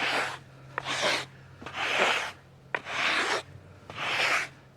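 Sawdust being brushed off the freshly sawn face of a maple log: five rubbing strokes across the wood, about one a second, with a faint steady low hum underneath.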